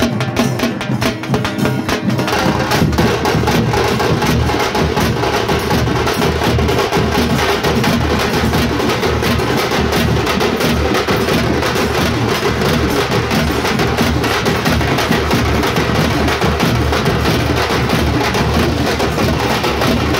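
A troupe of parai frame drums beaten fast with sticks, a dense, continuous rhythm of sharp strokes. The beat thickens about two seconds in.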